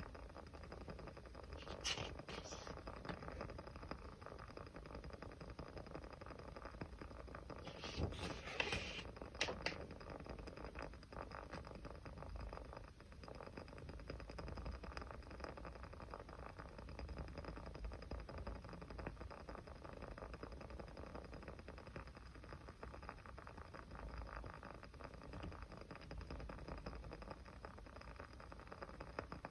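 Small fire crackling softly with a steady patter of fine ticks, and a few louder pops about two seconds in and again around eight to nine seconds in.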